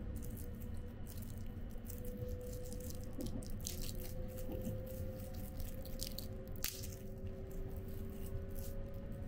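A thin plastic wrapper crinkling and tearing as a disposable wooden spoon is unwrapped by hand, in short irregular crackles. Underneath is the low steady rumble of the sleeper train running.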